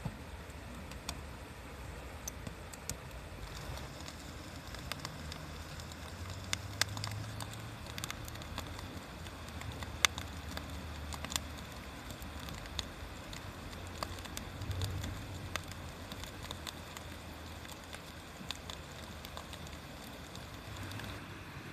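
Wood fire crackling, with irregular sharp pops and snaps, the loudest about ten seconds in, over a low steady rumble.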